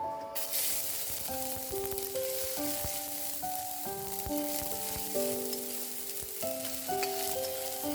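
Food frying in a pan: a steady sizzling hiss that cuts in just after the start, with a few small pops and clicks. Gentle piano music plays over it.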